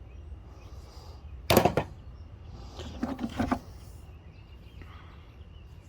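Hand tools being handled and set down: one sharp knock about a second and a half in, then a short clatter of several knocks around three seconds, over a low steady hum.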